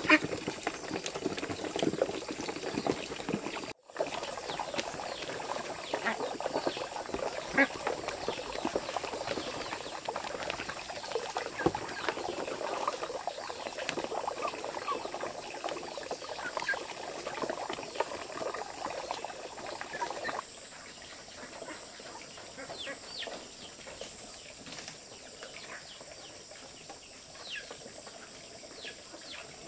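Ducks calling and dabbling in water, with many small splashes. About twenty seconds in it gives way to quieter outdoor ambience with scattered insect and bird chirps.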